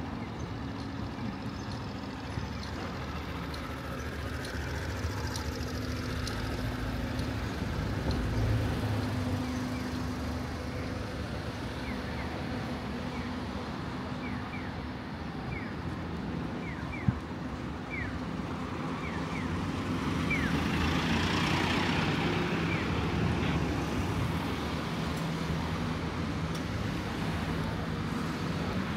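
Road traffic on a street: a steady engine hum, with a vehicle passing close about two-thirds of the way through. Short high chirps are scattered through the middle, and there is one sharp click.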